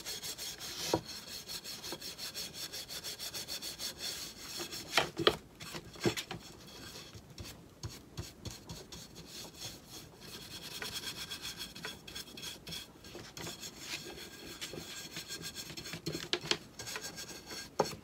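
Stiff paintbrush scrubbing paint onto a twisted wooden spindle in rapid repeated strokes, with a few sharp knocks about one, five and six seconds in.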